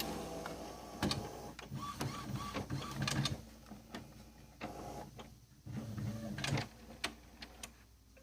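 Epson WorkForce Pro WF-3720 inkjet printer powering up: its mechanism runs through the start-up cycle in stretches of motor whirring broken by several sharp clicks.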